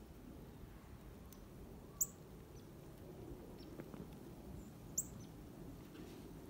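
A bird calling twice, about three seconds apart, with a short high-pitched chirp each time, over a faint steady low background hum.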